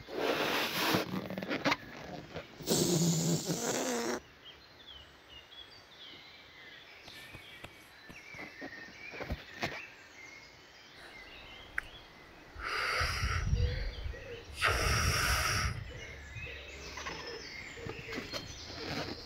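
Birds chirping faintly, broken by four loud bursts of rushing noise about a second long each; the last two, about two-thirds of the way through, carry a deep rumble.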